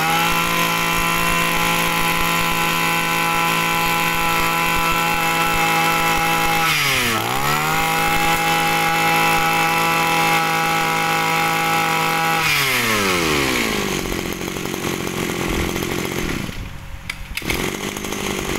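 Mitsubishi T130 brush cutter's small 23cc two-stroke engine revved and held at high speed, with the throttle let off and opened again about seven seconds in. It is then released to drop back to idle a little past the middle.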